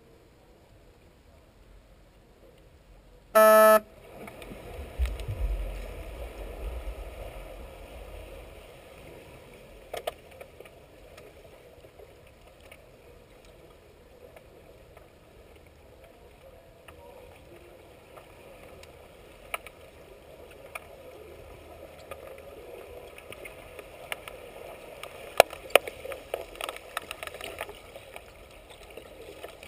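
Underwater sound in a pool: a short, loud electronic horn blast about three seconds in, the referee's underwater signal that starts play in underwater hockey, followed by water churning as players move. Toward the end, sharp clicks and knocks of sticks and puck on the tiled pool bottom come thicker and louder.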